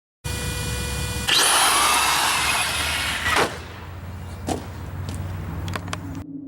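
Small electric motor of an RC car whining, then revving hard with a loud rush and a rising whine, easing off with a few sharp clicks before cutting off suddenly.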